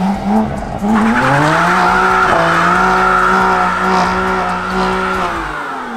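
A car doing a burnout: after a few short blips, its engine revs climb about a second in and are held steady with the tyres squealing, then the revs drop away near the end.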